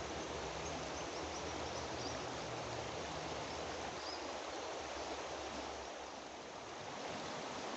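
Fast-flowing river running steadily, a continuous rushing hiss of moving water.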